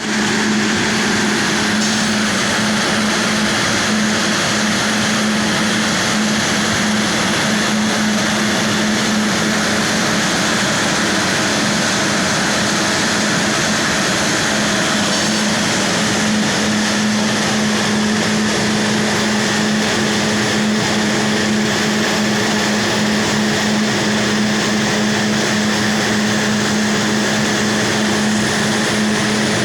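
Corn grain-drying machine running steadily: a loud, even rush of air from its large fan with a constant low hum underneath.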